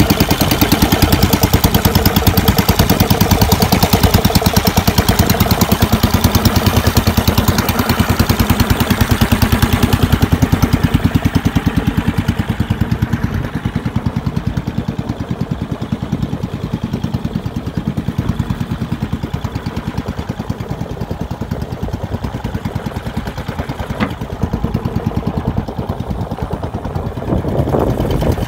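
Small engine on a fishing boat running steadily with a rapid, even chugging. Its sound grows duller and a little quieter after about ten seconds.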